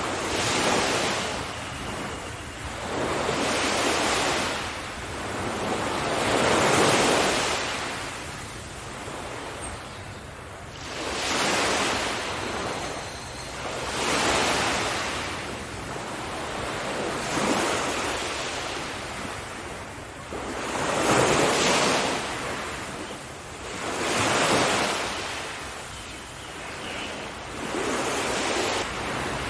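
Ocean waves breaking and washing on the shore, a hissing surf that swells and falls back about every three to four seconds.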